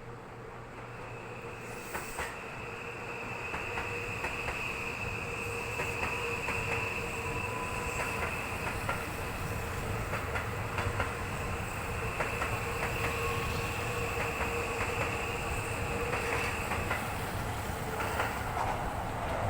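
Electric commuter train running past on the Seibu Ikebukuro Line, growing louder, its wheels clicking over rail joints. A steady high whine and a lower hum go on with it and stop near the end.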